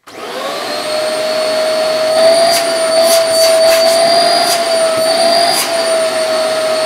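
Hoover Eco G Turbo Power upright vacuum cleaner switched on: its motor comes up at once and runs with a steady hum and whine. In the middle come a few sharp clicks and knocks as the hose is worked out of its holder. Near the end it is switched off, and the pitch falls as the motor winds down.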